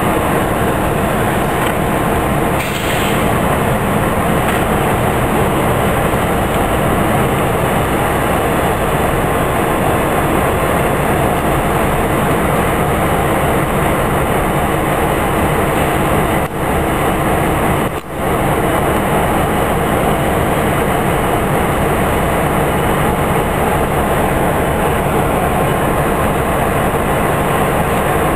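Steady, loud rail-yard noise of diesel locomotives and a small yellow track vehicle running around a locomotive shop turntable. The noise dips briefly twice, a little past halfway.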